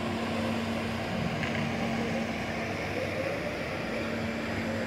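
Nilfisk industrial floor scrubbers running, a steady machine hum with one constant low tone.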